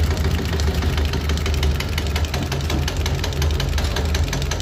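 Diesel injection pump test bench running a Mazda T3500 fuel injection pump: a steady motor hum under a rapid, even ticking from the test nozzles firing into the measuring cylinders.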